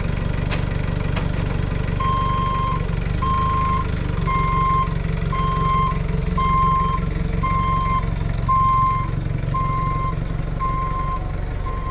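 Forklift engine running as it reverses, its backup alarm beeping about once a second from about two seconds in.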